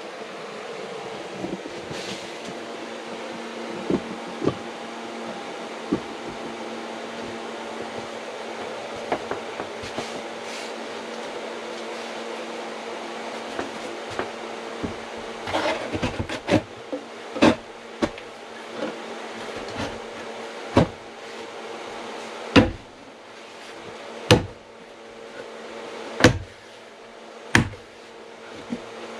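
A wooden window casing being knocked into its opening with a hammer: scattered light knocks, then, in the last third, a run of sharp, loud blows about every one and a half to two seconds. A steady mechanical hum runs underneath throughout.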